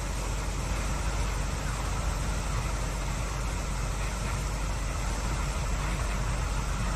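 Fast-flowing stream rushing over rocks: a steady, even rush with a low rumble underneath.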